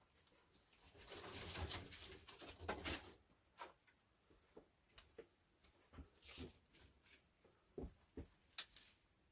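Rustling of dry brushwood and fern fronds being handled, then scattered crackles and a few sharp snaps near the end as the brush is pushed into a stone hearth to lay a fire.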